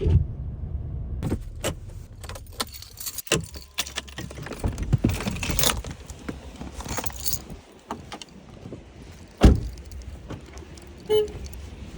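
Minivan driving slowly on snowy road: a low engine and road rumble with repeated clinking and rattling inside the cabin. A loud thump comes about nine and a half seconds in, and a brief beep about eleven seconds in.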